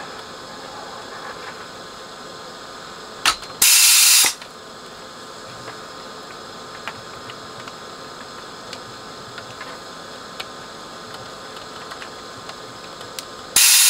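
Vacuum desoldering gun sucking molten solder off a circuit board's joints: two short, loud hissing bursts of suction, one about four seconds in and one at the very end, over a faint steady hum from the gun.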